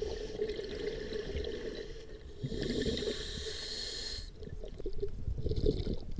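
Scuba diver breathing through a regulator underwater: a hissing inhale about halfway through and a shorter one near the end, with bubbling and gurgling from exhaled air between them.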